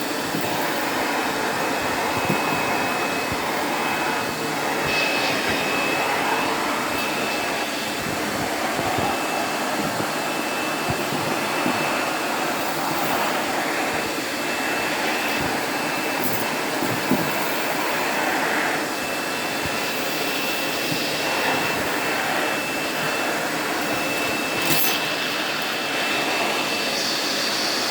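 Vintage Sunbeam canister vacuum cleaner running steadily: an even rushing motor-and-airflow noise with a thin, high whistle that comes and goes.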